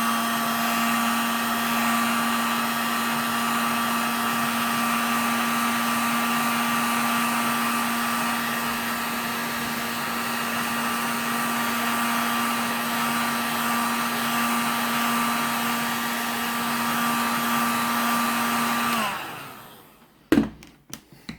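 Heat gun blowing steadily, a rush of air with a steady hum and a thin whine, heating the phone's back to loosen the glued glass. It is switched off near the end, its pitch sagging as it dies, and a few sharp clicks follow.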